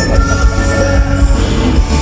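Live band playing loud rock music, with a heavy bass beat and held instrumental notes.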